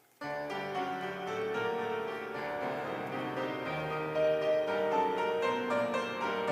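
Piano music starting abruptly a fraction of a second in, right after a moment of near silence, and carrying on with held, ringing chords.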